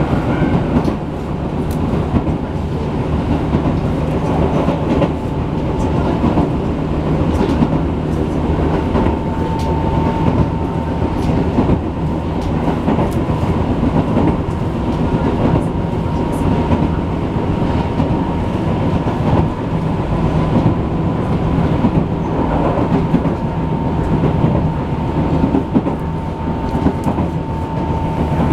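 Tobu 6050 series electric train running along the line, heard inside the carriage: a steady rumble of wheels on rail with scattered clicks at the rail joints and a faint steady high tone. A level-crossing bell rings briefly at the start.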